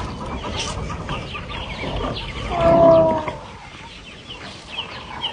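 Birds clucking and chirping, with one louder drawn-out call a little past halfway.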